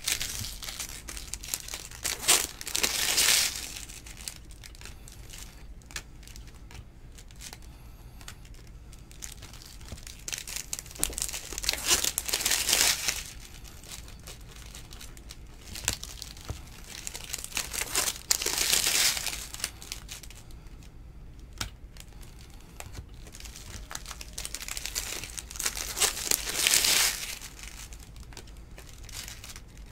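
A stack of glossy baseball trading cards being flipped through and sorted by hand: the cards slide and rustle against each other in four louder bursts of a couple of seconds each, with quieter handling between them.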